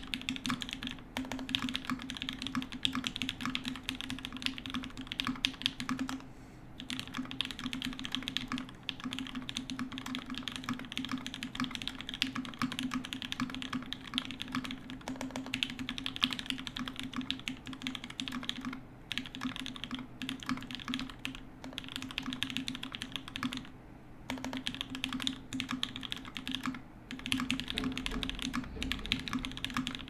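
Continuous typing on a Cannonkeys Satisfaction75 mechanical keyboard with lubed and filmed JWK Giants switches in an FR4 plate, burger-mounted, under GMK keycaps. A dense stream of keystrokes, broken by a few short pauses.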